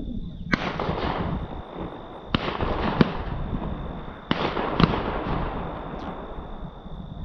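Distant shotgun shots, several in quick succession over a few seconds, each trailing off in a long rolling echo. These are hunters firing at a deer pushed out by the hounds.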